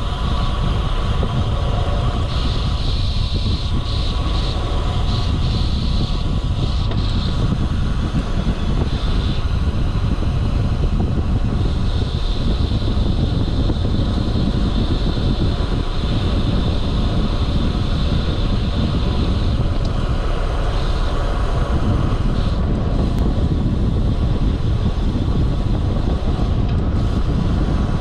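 Steady rush of wind buffeting the camera microphone, with tyre and road noise from a road bike riding along. A thin high-pitched hum fades in and out over it.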